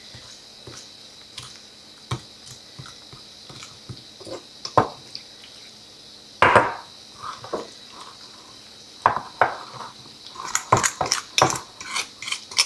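Metal fork stirring pinole (toasted ground corn) and milk in a small clay bowl, clinking and scraping against the bowl while mixing it into a lump-free paste. Scattered taps at first, one louder knock about six and a half seconds in, then quick rapid tapping near the end as the mixture is beaten.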